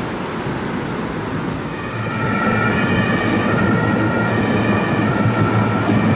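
City traffic noise, then from about two seconds in a two-tone emergency-vehicle siren switching back and forth between two pitches, over the low hum and rumble of a passing tram.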